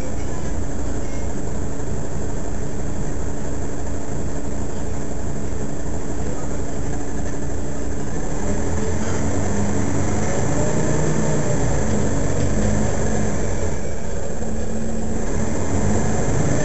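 Mercedes-Benz Citaro facelift city bus idling at a standstill, a steady low engine hum. Around the middle a higher sound swells and then fades.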